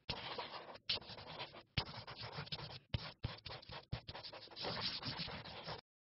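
Continuous scratching noise, broken by several brief gaps, that cuts off abruptly near the end.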